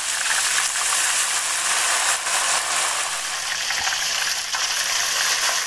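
Ice-chilled ghewar batter poured in a thin stream into very hot desi ghee in a deep pot, frying with a loud, steady crackling sizzle as the ghee froths up. Cold batter meeting very hot ghee is what sets the ghewar's lattice.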